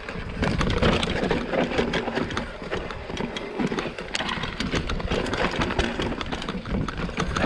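Mountain bike clattering down a rocky trail: tyres crunching and knocking over rocks and loose stones, with the bike rattling in quick irregular knocks.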